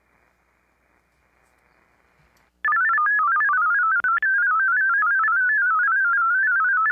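Faint receiver hiss, then about two and a half seconds in the VARA HF modem's transmit audio starts loud: a data tone warbling rapidly up and down in pitch, sending a VarAC CQ call, with a brief dropout about four seconds in.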